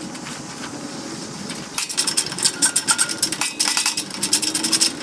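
Metal parts clinking and rattling in quick irregular clatters as they are handled. The clatter starts about two seconds in, after a quieter stretch.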